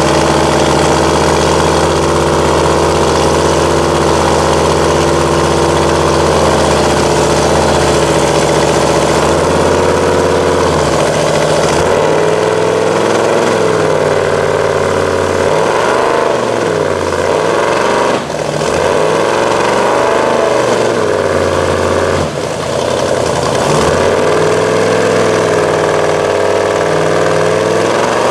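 Engine of a lifted mud truck on giant mud tires running hard under load, holding a steady note at first, then revving up and down several times as the tires spin in deep mud.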